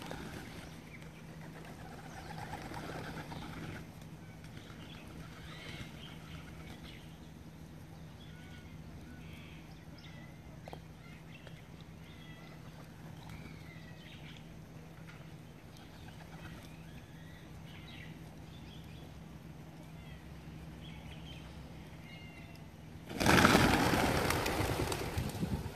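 A flock of pigeons taking off together near the end: a sudden loud flurry of wingbeats that fades over a couple of seconds, the birds flushed by an approaching cat. Before it, faint bird chirps over a quiet background.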